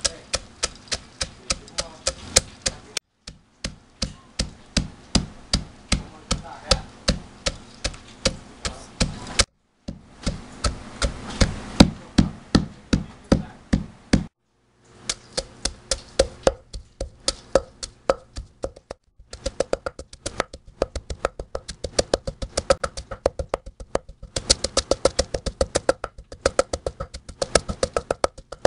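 A pestle pounding peanuts in a mortar: quick, regular knocks at about four a second, broken by brief gaps. In the last stretch the pounding is faster as red chilies are crushed in the same mortar.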